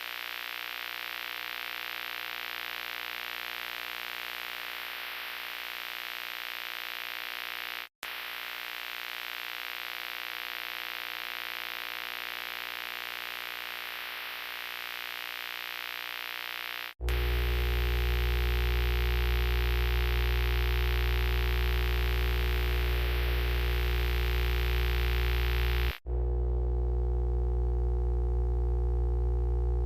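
A run of separate steady electronic hum or drone effects, each lasting several seconds and cut cleanly into the next. From about the middle on, the hum is louder with a deep bass drone.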